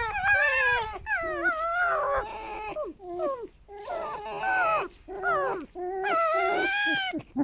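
Foxes squealing at each other in a string of high, wavering, creaky whining calls that glide up and down. It is a harmless vocal squabble over sharing a den, not a fight.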